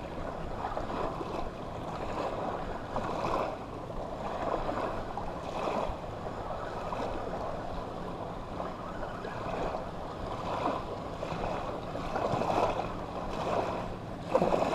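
Small surf waves breaking and washing up a beach, the noise swelling and fading again and again.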